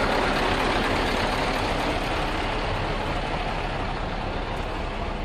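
Scania V8 diesel truck engine idling, a steady low rumble that fades slightly toward the end.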